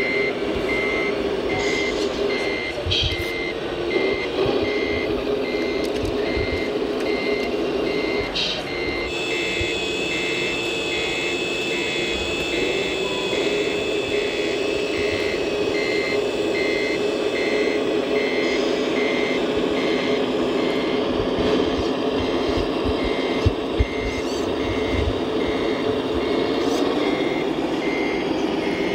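Scale RC Mercedes-Benz Actros SLT heavy-haulage truck's sound module playing regular, evenly spaced reversing beeps over a steady simulated diesel engine hum. Two sharp clicks come late on.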